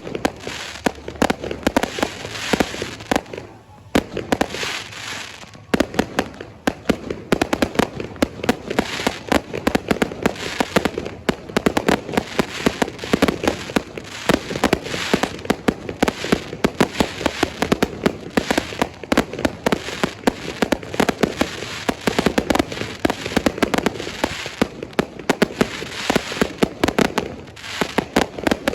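Fireworks going off in a dense, rapid barrage of sharp bangs and crackles, almost without pause, easing off only briefly about three seconds in.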